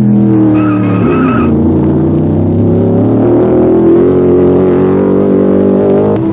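Race car engine running hard: its pitch drops in the first second, then climbs steadily as it accelerates. A brief high squeal, like tires, comes about half a second to a second and a half in.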